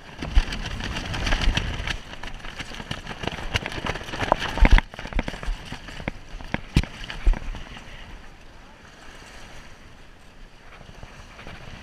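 Water rushing and splashing along a Club 420 sailing dinghy's hull, with wind on the microphone, broken by sharp knocks as the jib sail and its lines are handled. The loudest knocks come about half a second in and near five seconds in; after about eight seconds it settles to steady water and wind.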